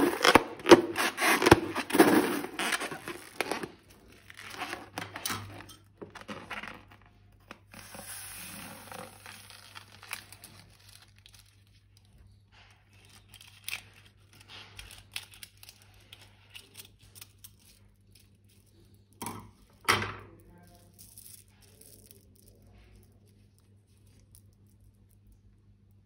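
Balloons and slime being handled: dense crinkly, crackling and tearing sounds for the first few seconds, then sparse small clicks and soft squishy rustles, with two sharper sounds about twenty seconds in. A faint steady hum runs underneath.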